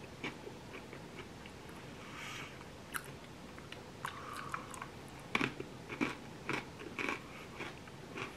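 Crisp bites and chewing of a milk-chocolate-coated pretzel. A few crunches come in the first half, then a run of sharp crunches about two a second from about five seconds in.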